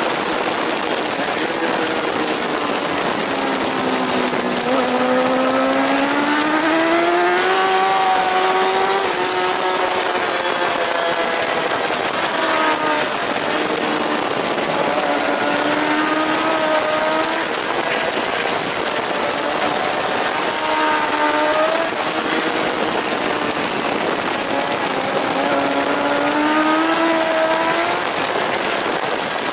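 JSB1000 racing superbike engine at full race pace, its pitch climbing, holding and dropping several times as the rider works the throttle and gears through a run of corners, over heavy wind rush.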